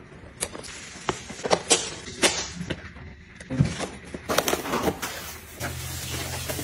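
Objects being handled and set down: a string of irregular clicks, taps and knocks, with a low steady hum starting near the end.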